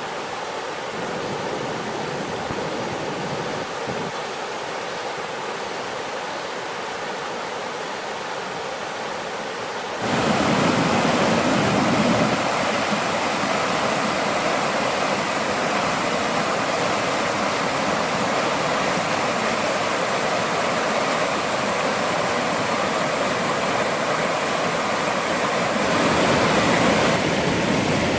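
Mountain stream rushing over rocks, a steady rush of water that becomes abruptly louder and fuller about ten seconds in.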